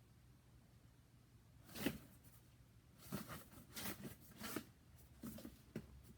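Packaging being handled: a series of short, faint rustles and scrapes, roughly one every half second to a second.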